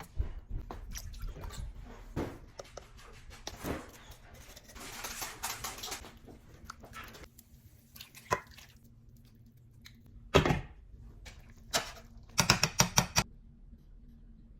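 Cookware handling: utensils knocking and scraping against a pot, with a stretch of hissing about five seconds in, a few sharp knocks, and a quick rattle of clinks near the end.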